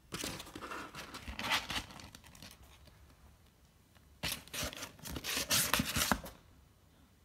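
A 55-day-old kitten's claws scratching at cardboard as it climbs over a box's edge, in two bouts of rapid scratching, the second starting about four seconds in.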